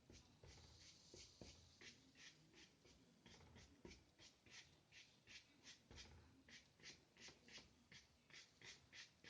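Faint scratching of a paintbrush with white gouache dabbed across paper in quick short strokes, about three a second.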